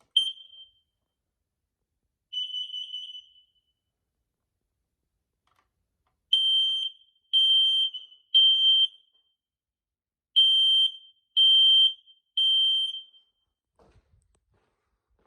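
Smoke alarm being tested: a short chirp, then a beep of about a second, then its high-pitched alarm sounding in two groups of three beeps. The three-beep pattern is the standard smoke-alarm evacuation signal.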